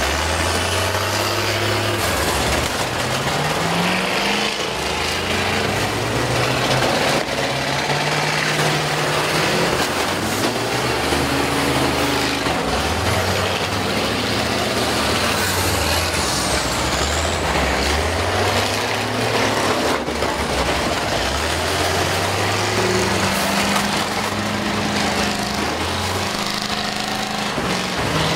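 Big school-bus engines revving up and falling back again and again, over a loud, steady din.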